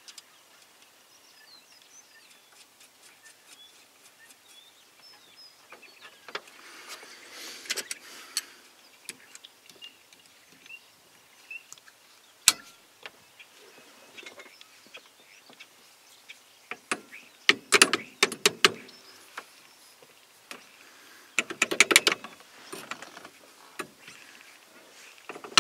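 Hand tools clicking and scraping on the metal of a 1991 Ford F-150 steering column as a small screw is worked into a retaining pin and locking pliers clamp onto it to yank the pin out. Mostly light ticking, with one sharp click about halfway through and two bursts of rapid clicking near the end.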